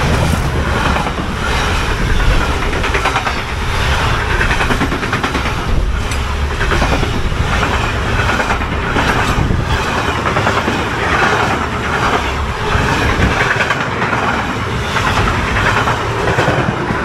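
Freight train passing at speed a couple of metres away: a locomotive followed by a long string of car-carrier wagons. The noise is loud throughout, with the wheels clattering in a steady repeating rhythm of about once a second.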